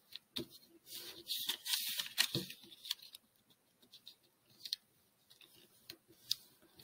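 A sheet of origami paper rustling and crackling as its corners are folded in to the centre and the creases pressed flat with the fingers. The rustle is busiest in the first three seconds, then thins to a few light ticks.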